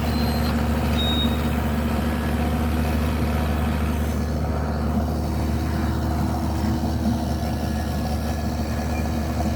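A heavy diesel engine running steadily at an even speed with a deep, constant hum.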